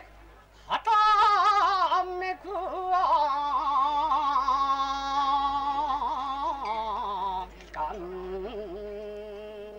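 A man's voice chanting verse in long held, wavering notes. The chant begins after a short quiet moment at the start, with a brief breath pause a little before the end.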